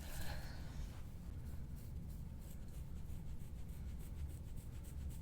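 Faint scratchy rubbing, many quick strokes, from hands-on work during a chiropractic treatment, over a steady low hum in the room.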